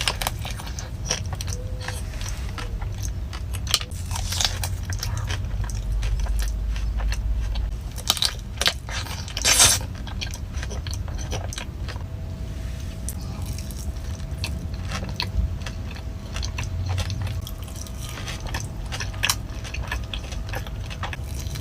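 Close-miked mukbang eating sounds: biting into and chewing desserts, with frequent small crisp clicks and crunches and one louder crackle about halfway through.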